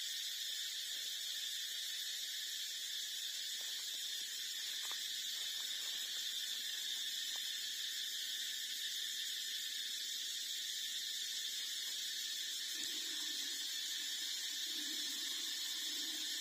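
A steady, unbroken high-pitched drone. Faint soft lower sounds come in during the last few seconds.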